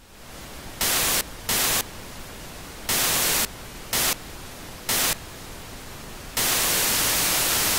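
Television static hiss, fading in at the start and jumping louder in five short surges, then holding loud over the last second and a half.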